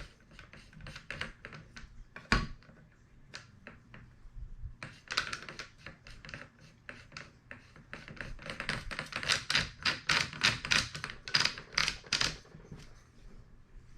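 Metal clicking as the muzzle brake is tightened onto a Panzer BP12 shotgun's barrel: scattered clicks and one sharper knock about two seconds in, then a long run of quick, rapid clicks from about five to twelve seconds in.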